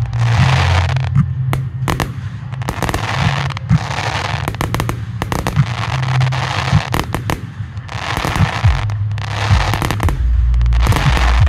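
Fireworks display: many sharp bangs of bursting shells and launches, with stretches of dense crackling from gold crackling stars.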